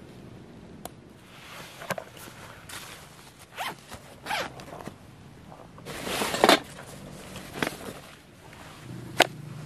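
Backpack zipper being pulled open in several quick strokes, the loudest about six seconds in, after a sharp plastic click near the start as the chest-strap buckle is released.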